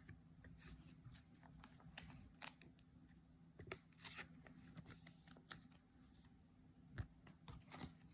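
Faint rustling and small irregular clicks of trading cards being handled, with a few sharper clicks, the clearest about seven seconds in.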